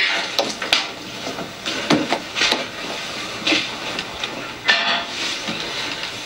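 Water running into a kitchen sink with dishes clinking and knocking at irregular moments as they are handled.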